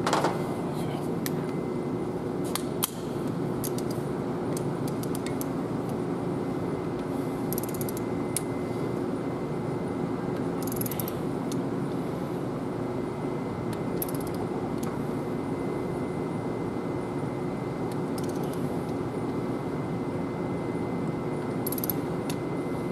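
Hand ratchet wrench clicking in short runs as the injector camshaft gear bolt is run down on a Cummins ISX CM870 engine, over a steady background hum.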